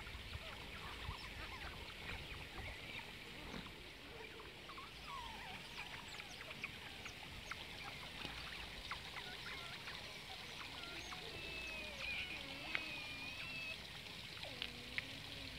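A group of Asian small-clawed otters playing, with many short high squeaks and chirps throughout and some longer wavering whistling calls in the second half.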